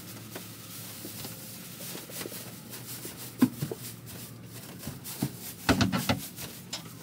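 A person moving about in a straw-bedded wooden goat shed: rustling with a few sharp knocks, the loudest a cluster of knocks a little under six seconds in.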